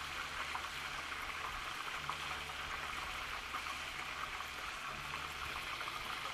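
Oil at about 350°F deep-frying a breaded burger patty in a saucepan: a steady bubbling, crackling sizzle.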